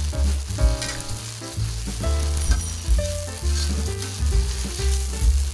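Chillies and tomato with a little added water sizzling in a wok, a metal spatula stirring and scraping against the pan, over background music.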